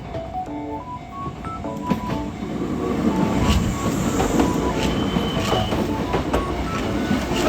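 Electric commuter train passing close by, its wheels rumbling and clacking over the rail joints, growing louder from about three seconds in. A simple background-music melody plays throughout.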